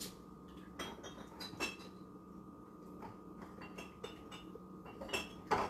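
Faint, scattered clinks and knocks of kitchenware and glass, about half a dozen light strikes, over a steady low hum.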